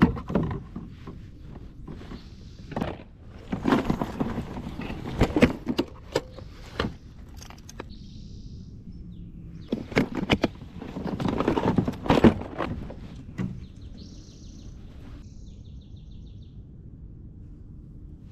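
Bursts of clattering and knocking from fishing gear handled aboard a kayak, among it a clear plastic tackle box being opened and rummaged through. A bird chirps twice in the lulls, the second time a quick trill.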